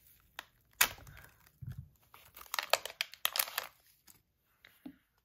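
Clear plastic bag being slit open with a knife and crinkled, a scatter of sharp crackles and clicks with a dense run of crinkling in the middle.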